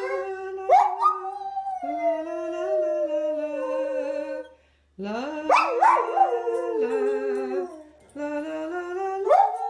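English springer spaniel howling in long, wavering notes, with sharp rising yelps breaking in. The howling stops briefly about four and a half seconds in and again about eight seconds in.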